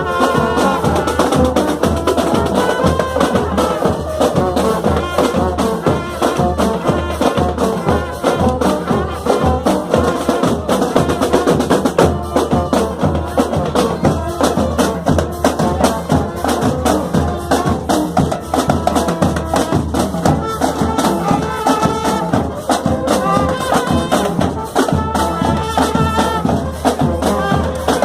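Marching band playing: brass carrying a melody over dense, fast drumming that runs without a break.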